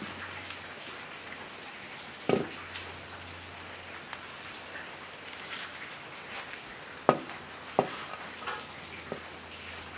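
Wood fire crackling and hissing under maize cobs roasting on a metal grate. A few sharp knocks stand out, the loudest about two seconds in and twice around seven to eight seconds in, as a stainless steel kettle is set and shifted on the grate.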